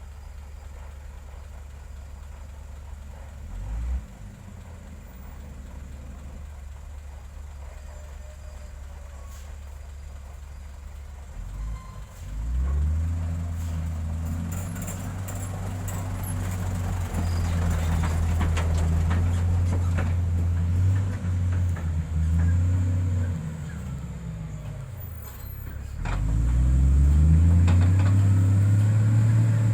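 Heavy diesel engine of road-construction equipment idling low, then revving up about twelve seconds in and running hard with its pitch rising and falling. It drops back toward idle, then revs up again in the last few seconds before cutting off abruptly.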